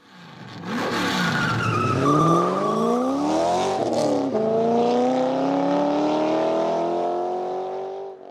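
Car engine accelerating hard, rising in pitch, dropping at a gear change about four seconds in, then climbing again; it cuts off suddenly at the end.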